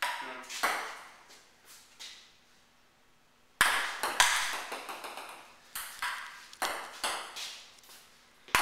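Ping-pong ball struck back and forth with paddles and bouncing on the table: a few scattered taps, a short pause, then a quick rally of sharp clicks about two a second from about a third of the way in.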